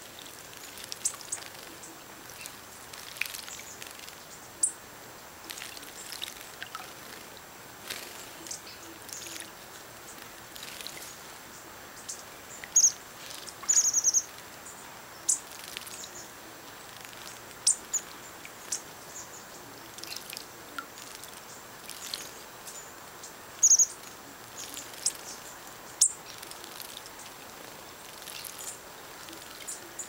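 Small songbirds chirping with many short, high calls, including a couple of quick runs of rapid notes, over a steady faint hiss. Light splashing from birds bathing in a birdbath mixes in.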